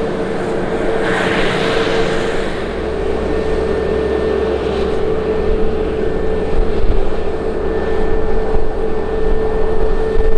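Airbus A320's CFM56-5B turbofan engines on final approach: a steady jet rumble with a whining fan tone, getting somewhat louder in the second half as the airliner nears.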